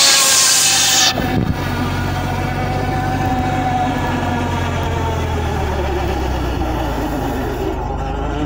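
Tractor-driven circular saw bench: the blade cuts through a plank with a loud, high rasp that stops abruptly about a second in. After that the tractor engine runs steadily under the spinning blade, with a faint steady whine.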